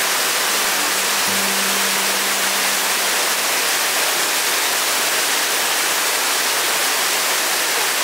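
Waterfall (Yoro Falls) rushing steadily, a dense, even rush of falling water. A soft held low note of background music sits underneath it from about a second in.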